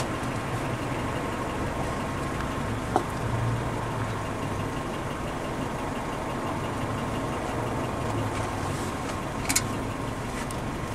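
A steady low engine hum runs underneath, with two short metallic clicks, about three seconds in and again near the end, as the brake caliper bolts are fitted by hand on the caliper.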